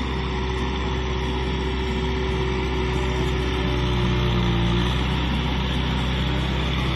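Kubota M6040SU tractor's four-cylinder diesel engine running steadily under load as it cultivates flooded rice-field mud, a constant drone with no breaks.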